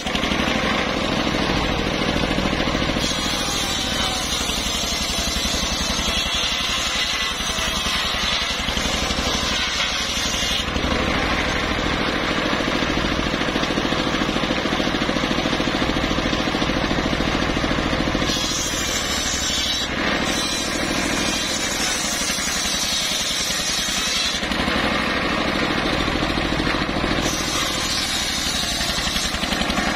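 Engine-driven circular saw bench ripping logs: a steady motor drone under load while the large blade cuts through the wood. The cutting noise changes several times as each piece is fed in and runs through.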